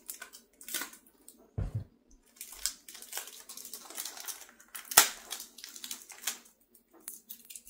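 Cellophane shrink wrap on a CD jewel case being cut with scissors and peeled off by hand: irregular crinkling and crackling, with one sharp, loud click about five seconds in.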